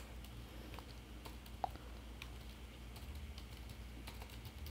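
Faint computer keyboard typing: irregular, scattered key clicks as a word is typed.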